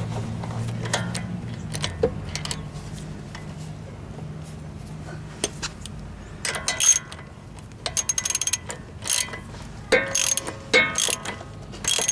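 Hand ratchet with a 19 mm socket tightening a bolt, its pawl clicking in short bursts; a few scattered clicks at first, then louder, denser runs of clicking from about halfway through.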